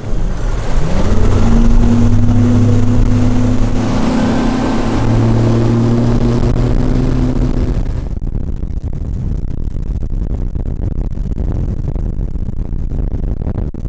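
Bass boat's outboard motor accelerating: its pitch rises within the first second and then holds steady at speed. About eight seconds in the engine tone drops away, leaving a steady rushing noise.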